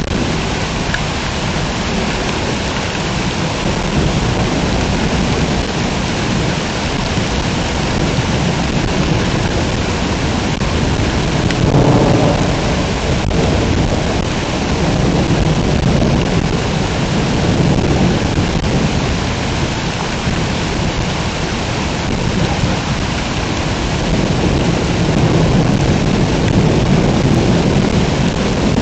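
Heavy rain pouring steadily during a thunderstorm, with low rolling thunder rumbling and swelling several times; the loudest roll comes about twelve seconds in.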